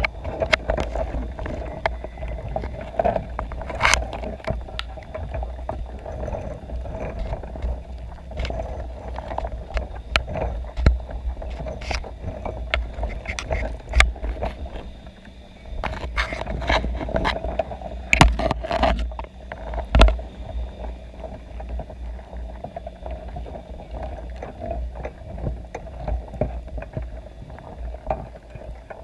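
Muffled underwater sound from a GoPro in its waterproof housing inside a crab pot: a steady low rumble and faint hum, broken by irregular sharp clicks and knocks as crabs crawl over the camera and the pot.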